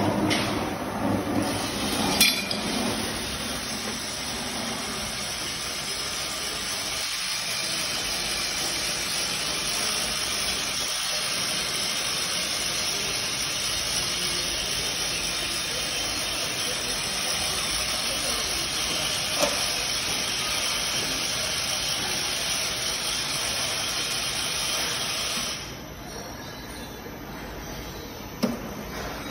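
High-speed disperser mixer running at speed: a steady, even hiss from its motor and spinning disc blade, which drops suddenly near the end.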